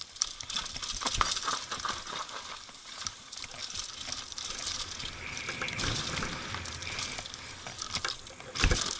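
Mountain bike riding fast downhill over a rocky dirt trail: tyres rushing over loose stones and dirt while the bike rattles and clatters over the bumps, with a heavier thump near the end.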